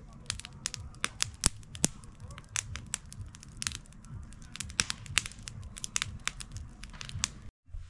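Wood campfire crackling, with irregular sharp pops and snaps several times a second over a low steady rumble.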